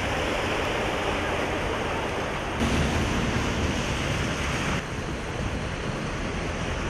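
Cars driving through floodwater covering a street, their tyres swishing and splashing through the water in a steady wash of noise. The sound shifts abruptly about two and a half seconds in and again near five seconds.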